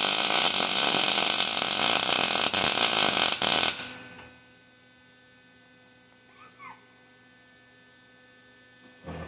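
MIG welder arc crackling and hissing steadily while welding steel gears, cutting off abruptly just under four seconds in. After that only a faint steady hum remains, with a light knock near the end.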